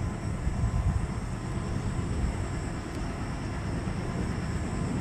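Twin WDG-3A diesel locomotives, ALCO 251 V16 engines, working under power as they haul a long freight train, heard as a steady deep engine rumble.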